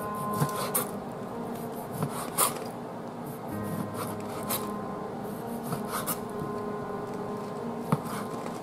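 Chef's knife cutting through marinated chicken breast and knocking against a plastic cutting board: irregular sharp chops a second or two apart. Music plays steadily underneath.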